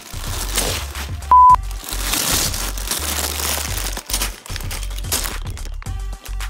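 Background music with a repeating bass beat, over a noisy plastic crinkling. A short, loud, steady beep sounds about a second and a half in.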